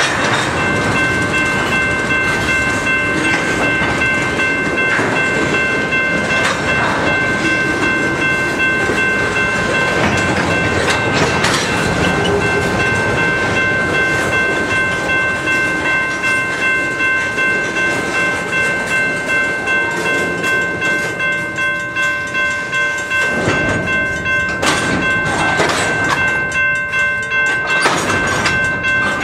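Freight train tank cars rolling past, their wheels clicking over the rail joints in a regular rhythm that grows clearer in the second half, under a steady high-pitched ringing.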